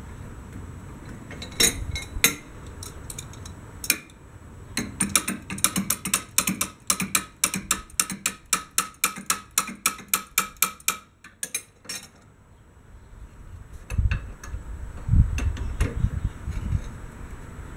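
Ratchet wrench clicking in a long run of quick, even strokes as mounting bolts are tightened, after a few separate clicks at the start. Some dull knocks follow near the end.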